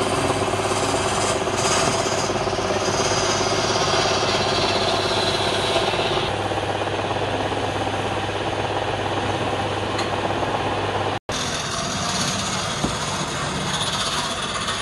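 Wood lathe running with a steady motor hum while a hand-held chisel scrapes the spinning wood, a continuous scraping hiss. The sound cuts out for an instant about eleven seconds in, then the lathe and scraping go on with a knife blade held against the turning wood.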